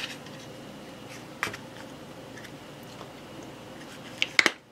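A few light clicks and taps over a steady background hum. One comes about a second and a half in, and the loudest, a quick cluster, comes near the end.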